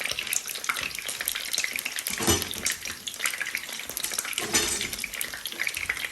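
Food frying in hot oil in a pan, a steady crackling sizzle. A utensil knocks against the pan twice, about two and four and a half seconds in.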